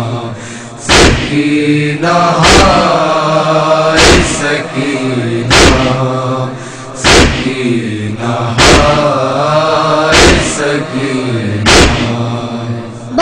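Voices chanting a noha lament together, with a heavy thump about every one and a half seconds: rhythmic chest-beating (matam) keeping time with the lament.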